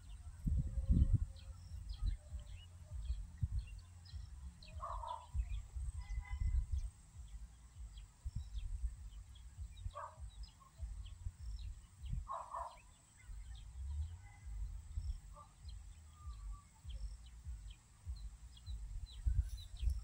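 Outdoor field ambience: an uneven low rumble on the microphone, with many short high chirps and ticks from small birds or insects. Three short bird calls stand out, about five, ten and twelve seconds in.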